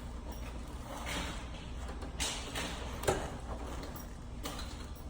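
A few scattered knocks and scrapes of hands and tools at work, over a steady low hum.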